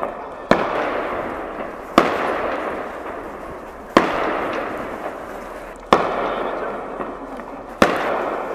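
Aerial fireworks shells bursting: five sharp bangs about two seconds apart, each followed by a long fading echo.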